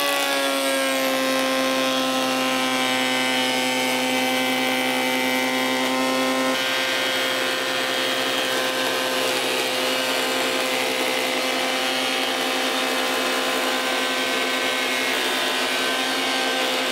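Scheppach HMS1070 planer-thicknesser running and surface-planing a hardwood ash board: a steady motor whine over the hiss of the two-knife cutterhead cutting. The pitch sags a little in the first second as the cutter takes the wood, and the tone changes slightly about six and a half seconds in.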